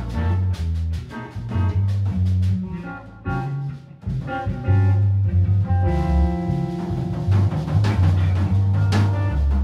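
A small live band playing improvised jazz: electric guitars over a drum kit, with deep held bass notes. The playing thins to a brief lull about three to four seconds in, then comes back fuller with sustained notes.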